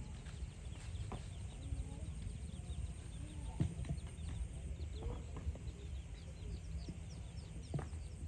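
Fowl and birds calling: many short high chirps and some lower clucking calls over a steady low rumble, with a few sharp clicks.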